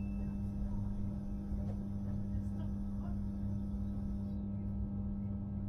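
Steady low hum inside a train carriage, over a constant low rumble, with a few faint clicks.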